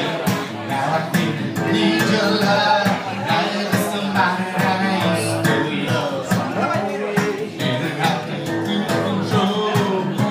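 A man singing live to his own rhythmically strummed acoustic guitar.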